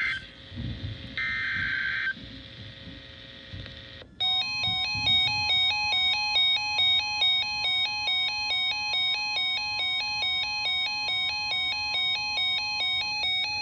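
NOAA Weather Radio emergency alert opening: a short buzzy burst of SAME digital header data ends right at the start and another comes about a second in, then about four seconds in the steady 1050 Hz warning alarm tone starts, sounding together with an alarm that steps back and forth between two pitches. The warning tone cuts off near the end while the two-pitch alarm keeps going.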